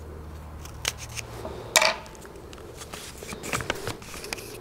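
A small rolled paper lot being unrolled and flattened by hand: paper crinkling with small clicks and one sharp snap just under two seconds in.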